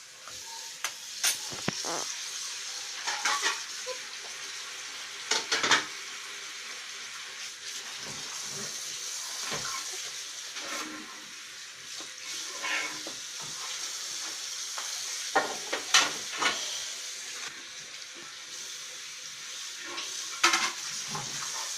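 Slime mixture of white glue being stirred and scraped in a container with a utensil: irregular scrapes and clicks over a steady hiss.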